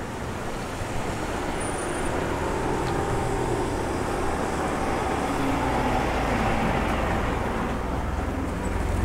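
Steady street traffic noise: a continuous low rumble of road vehicles.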